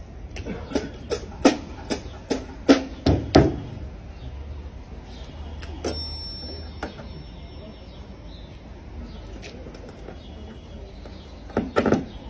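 A string of sharp knocks, about nine in three seconds at a walking pace, some deep and thudding, then a single click and two more knocks near the end.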